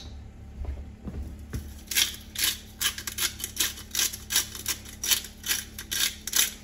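Hand pepper grinder being twisted, a quick series of gritty crunching strokes about three a second, running nearly empty of peppercorns.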